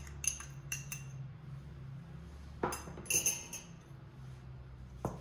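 A spoon clinking against a mixing bowl in short, ringing taps, several in the first second, a cluster about three seconds in and one near the end, as a spoonful of salt is added to flour for dough.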